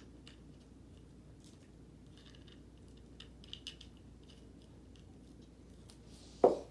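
Faint scattered clicks and short rustles of a folded nylon inflatable and its parts being handled, then one sudden loud thump near the end.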